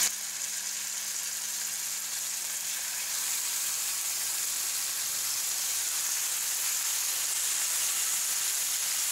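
Pork slices sizzling in hot vegetable oil in a frying pan as they are laid in, a steady hiss that grows slightly louder as more meat goes in.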